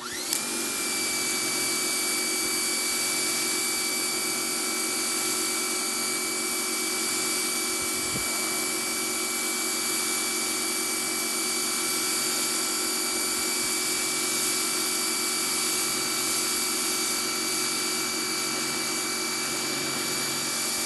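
Electric pressure washer running and spraying through its wide 40-degree nozzle: the motor and pump start with a quick rising whine that settles into a steady high whine over a loud spray hiss.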